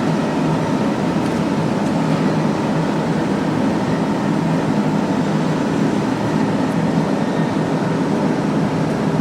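Lotze CNC press brake's drive motor running at idle: a steady hum with a constant low tone.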